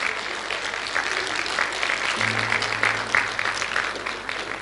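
Congregation applauding, many hands clapping steadily. A low musical note is held for about a second near the middle.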